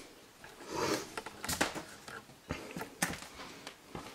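Footsteps on bare wooden floorboards: a few irregular knocks about half a second to a second apart, with a brief rustle about a second in.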